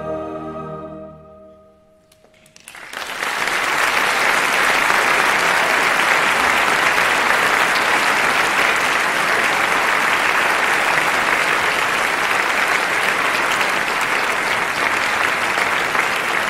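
The orchestra's final held chord fading away, then a concert audience applauding steadily from about two and a half seconds in.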